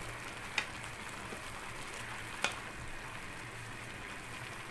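Wooden spatula stirring rice that is about 70% cooked in a metal pot, over a steady hiss of the cooking rice. The spatula knocks sharply against the pot twice, about half a second in and again about two and a half seconds in.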